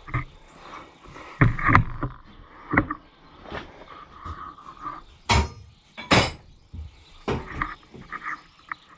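Pipe wrench and gloved hands unscrewing a threaded elbow fitting from the head of an Oliver hydraulic cylinder: irregular metal clanks and knocks with scraping between, the loudest about a second and a half in and again around the middle.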